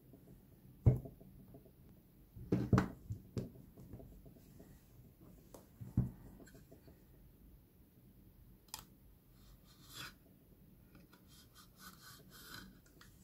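Utility knife blade scratching and cutting along the edges of a phone box's plastic shrink-wrap, with a few sharp handling knocks about a second in, near three seconds, and at six seconds.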